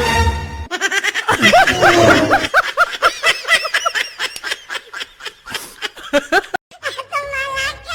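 A laughing sound effect: a person snickering in high, rising-and-falling bursts that break into a quick run of short pulses. A bit of music cuts off under a second in, and another clip with a steady low beat begins near the end.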